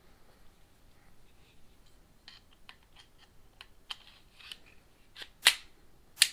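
Small metallic clicks and taps of Glock 42 pistol parts being handled during reassembly, growing busier, with a sharp, louder click about five and a half seconds in and more loud clicks at the very end.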